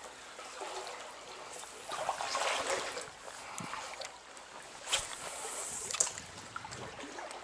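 Small stream running, with splashing and a couple of sharp knocks, the loudest about five and six seconds in.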